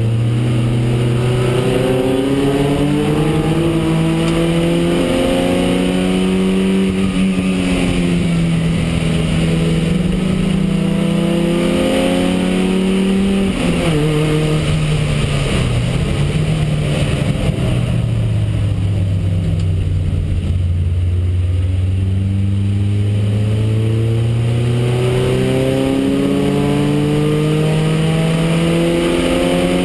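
Porsche 924R race car's engine heard from inside the cockpit, pulling hard with its pitch climbing slowly, dropping sharply about halfway through as the car slows, staying low for a few seconds, then climbing again toward the end.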